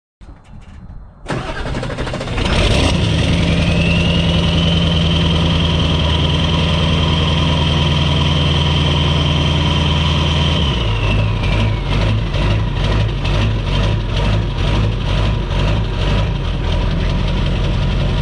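Ford 7.3L Powerstroke diesel V8, fitted with a 5-inch turbo-back exhaust, cranks and catches, then runs loud with a high steady whistle. About eleven seconds in, the engine note changes and the whistle falls away, leaving an even, pulsing diesel idle.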